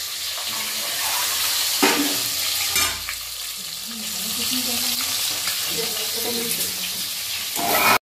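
Peeled boiled eggs sizzling as they fry in hot oil in a steel pot, with a couple of sharp metal clinks in the first three seconds. The sound cuts off abruptly just before the end.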